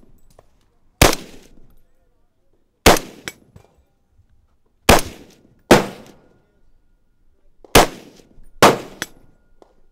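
Heckler & Koch MR556 5.56 mm rifle fired six single shots at uneven intervals of about one to two seconds, each shot followed by a brief trailing echo.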